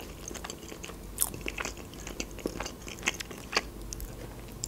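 Close-miked chewing of a mouthful of boiled meat dumplings (pelmeni), with soft wet mouth clicks and smacks at irregular intervals.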